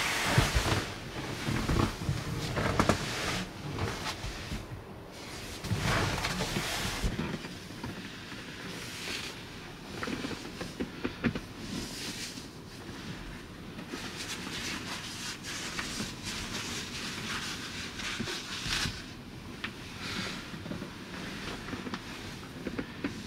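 Irregular rustling and soft knocks of a person shifting about on a cushioned bench bed in a small wooden camper, loudest in the first few seconds and coming in scattered bursts after that.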